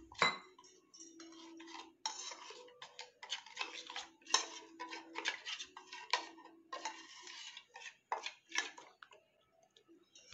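Steel spoon clinking and scraping against a stainless steel bowl, stirring spice powder and water into a paste, with many irregular small clinks.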